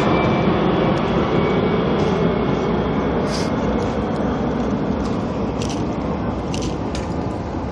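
Four jet engines of the Boeing 747 Shuttle Carrier Aircraft in a low flyby, a broad jet roar with a faint whine at first that fades steadily as the aircraft moves away. A few sharp clicks stand out from about halfway in.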